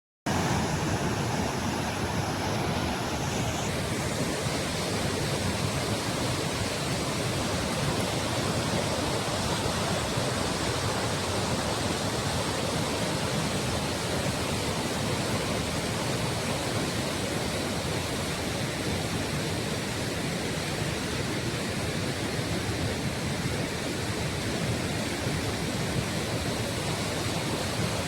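Steady, unbroken rushing of water, even throughout.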